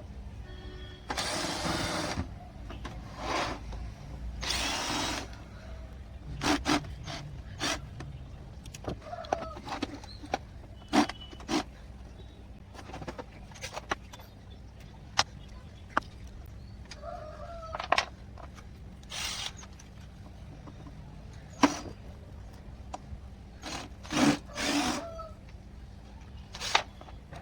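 Parts of a Canon LBP2000 laser printer being handled and taken apart: scattered sharp plastic and metal clicks and knocks, with a few longer scraping rustles and brief squeaks, over a steady low hum.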